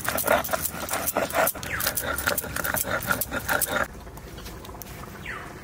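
Stone grinding on a shil-nora: a cylindrical stone pestle rolled and rubbed back and forth over a flat grinding stone, crushing sour spinach stalks into a wet paste, with rapid scraping strokes about three a second. The strokes stop about four seconds in.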